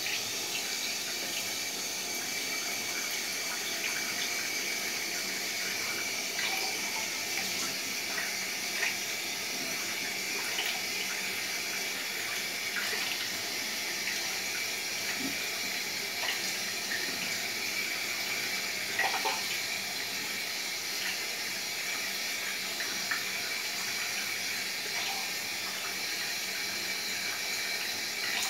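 Bathroom tap running steadily into a sink, with small splashes now and then as the face is rinsed after shaving.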